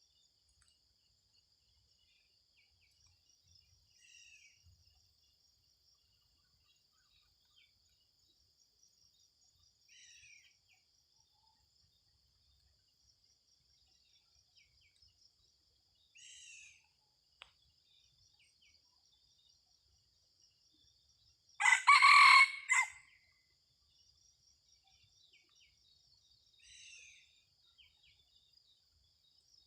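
Red junglefowl rooster crowing once, loud and about a second and a half long, about two-thirds of the way in. A steady high insect drone runs throughout, with faint short falling bird calls every several seconds.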